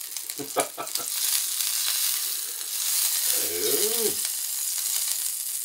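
Horumon (offal) sizzling and spattering on a hot tabletop gas grill plate, with a few sharp pops in the first second. About three and a half seconds in, a man's short low murmur rises and falls.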